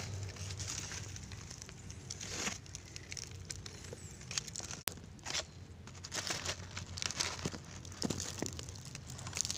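Dry leaves and twigs rustling and crackling underfoot, in irregular scattered bursts.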